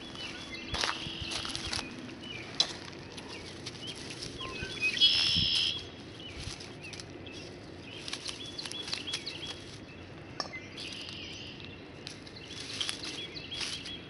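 Dry straw mulch crackling and snapping with scattered clicks as asparagus spears are cut at the base. Birds chirp in short high phrases several times over it; the loudest chirp comes about five seconds in.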